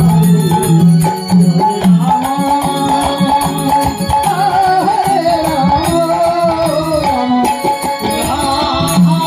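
Live Bengali kirtan: voices sing a wavering devotional melody over khol drums beaten in a steady rhythm, with hand cymbals ringing on top.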